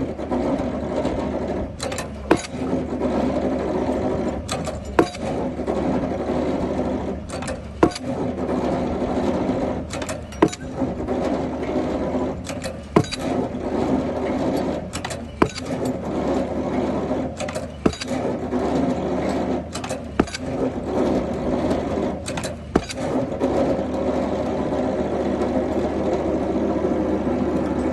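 Pile driver at work: its engine runs steadily while the hammer strikes the pile about every two and a half seconds, each blow a sharp double knock. The blows stop a few seconds before the end, leaving the engine running.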